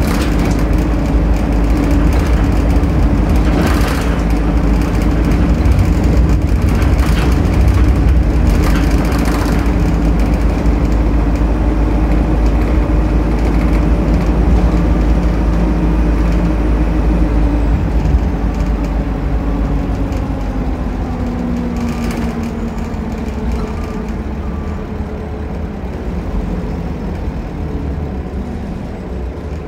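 Optare Solo midibus heard from inside the cabin: a steady engine drone and road noise while under way, with a few sharp knocks and rattles, about four, seven to nine and twenty-two seconds in. About eighteen seconds in, the engine note drops in pitch and the sound grows quieter as the bus eases off and slows.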